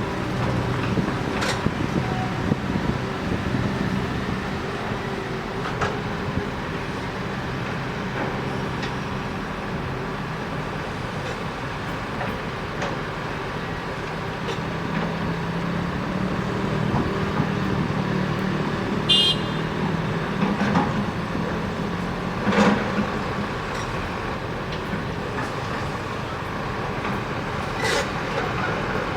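Heavy diesel excavator engine running steadily under load, its pitch shifting a little as it works, with a few sharp metallic knocks and one brief high squeal.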